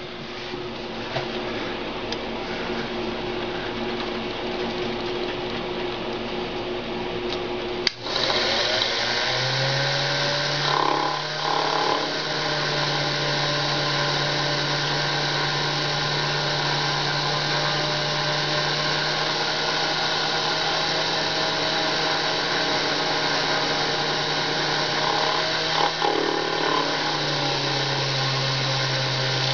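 Unimat SL mini lathe running, its motor and spindle whining steadily while a welding contact tip is turned down. The sound builds over the first few seconds; about eight seconds in a sharp click is heard, after which it runs louder with a steady low hum added.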